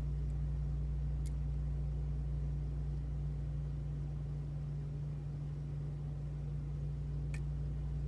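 Steady low electrical hum, with two faint light ticks of a lock pick working in the lock, about a second in and near the end.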